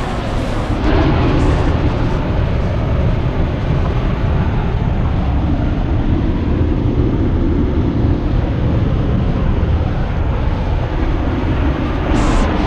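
Waterfall roaring: a loud, steady rush of falling water, heaviest in the low end.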